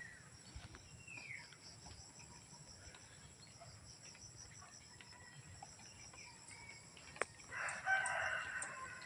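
A rooster crows once near the end, about a second and a half long. Before it there is only a faint steady high insect hum, with a sharp click just before the crow.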